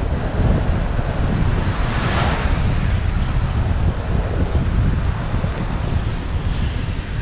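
Wind buffeting the camera microphone of a rider moving along on an electric unicycle: a steady, heavy low rumble, with a brief louder rush about two seconds in.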